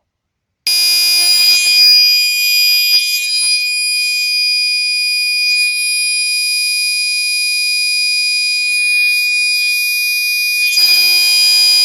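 Gentex Commander 3 fire alarm sounding its continuous tone: a harsh, extremely loud, unbroken horn that starts about a second in. Its sound shifts slightly shortly before the end.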